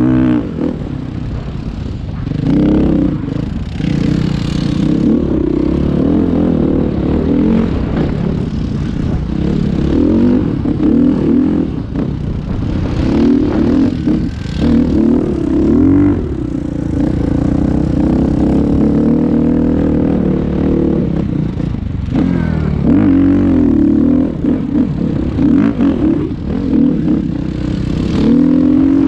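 Engine of a ridden small vehicle running hard, its revs rising and falling over and over.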